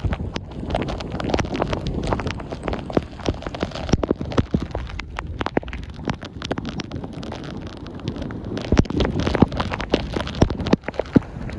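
Hurricane wind buffeting the microphone, with frequent sharp crackling hits over the surf washing up the beach.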